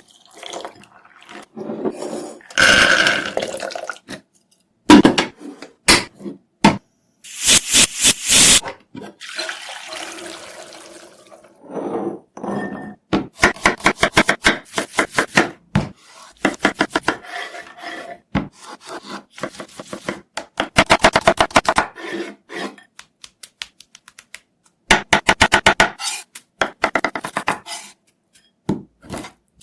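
Kitchen food-preparation sounds: ingredients tipped into a bowl, utensils knocking on dishes, and several runs of quick, even strokes of mixing or chopping.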